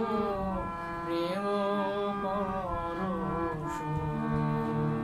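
A man singing a Bengali Christian hymn, holding and bending long notes, over steady sustained accompaniment notes. The voice drops out about three and a half seconds in while the held accompaniment notes carry on.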